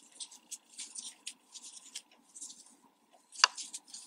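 Soft, irregular scratching and rustling of yarn drawn through stitches with a metal crochet hook, worked close to the microphone, with one sharper click about three and a half seconds in.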